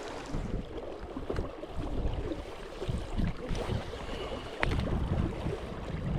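Wind buffeting the microphone in irregular gusts, over the rushing noise of river water.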